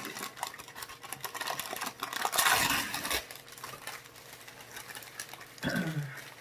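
Paper food wrapper rustling and crinkling with small clicks and taps, loudest about two and a half seconds in, as fast-food items are handled and unwrapped. A short low vocal sound, dropping in pitch, comes near the end.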